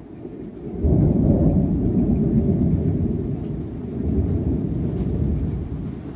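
Thunder rumbling over rain: a deep roll that surges up about a second in, carries on, and swells again a few seconds later.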